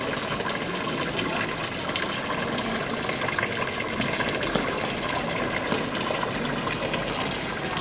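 A thin jet of water from a stone fountain's spout splashing steadily into the water-filled basin.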